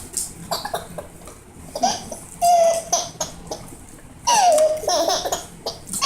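A baby laughing in several separate bursts, with high, held and falling squeals; the loudest come about two and a half and four seconds in.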